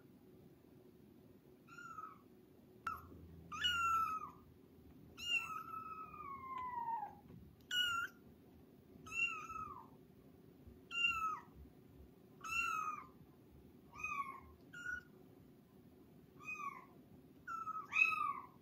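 A kitten meowing over and over, about a dozen high-pitched meows that each fall in pitch, coming roughly every second or so. One meow about five seconds in is longer and drawn out.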